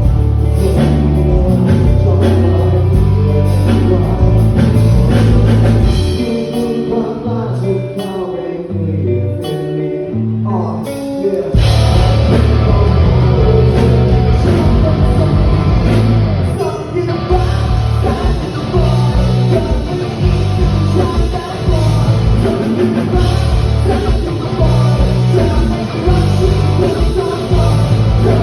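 Rock band playing with a singer: electric guitar, bass and drums. The bass and drums thin out about six seconds in, then the full band crashes back in about twelve seconds in.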